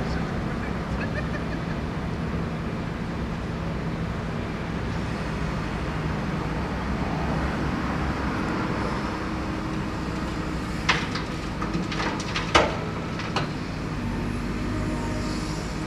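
Diesel engines of a JCB backhoe loader and a site dumper running steadily. A cluster of sharp knocks about two-thirds of the way through.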